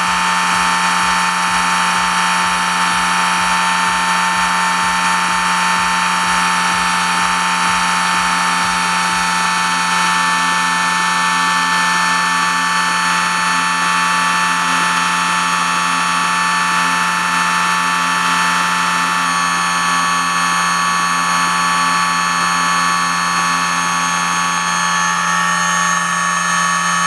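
Brushless motor on a dyno, driven by a Castle ICE2 HV160 ESC at 50% duty cycle under a load of about 40 amps, running steadily with an electric whine of several held tones.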